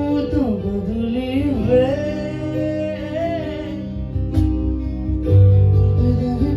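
Live band music through a PA system: a singer's voice gliding over guitar and steady bass, with the bass swelling louder about five seconds in.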